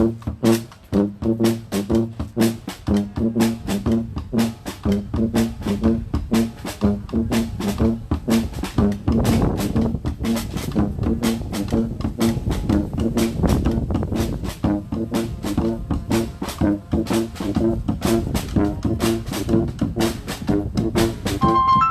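Brass band music: horns, with trombone prominent, playing a repeating riff over a steady drum beat. A held high tone comes in near the end.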